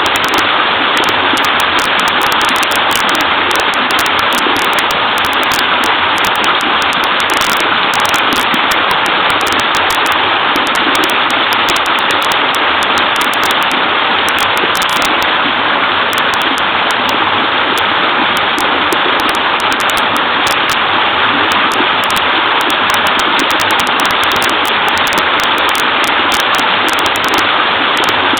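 Small waterfall on a stream, clear water running and splashing in a steady, even rush.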